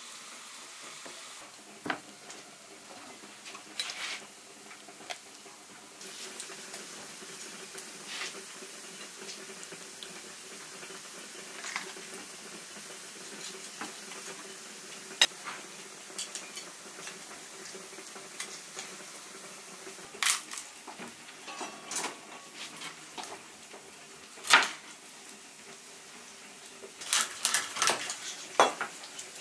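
Cleaver cutting up a raw chicken on a wooden cutting board: scattered sharp knocks, coming thicker and louder in the last few seconds.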